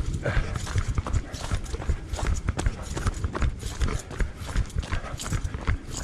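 Running footsteps on a rough dirt-and-rock trail: a quick, even run of footfalls with low thumps as the runner moves along.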